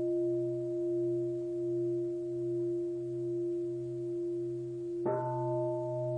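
Singing bowl ringing with a slowly wavering low hum, struck again about five seconds in, the fresh strike bringing up its higher tones.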